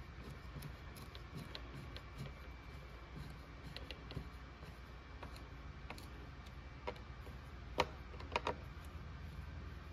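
Light metallic clicks and ticks of a hand tool working a chainsaw's anti-vibration spring back into its mount, with a few sharper clicks near the end, over a steady low hum.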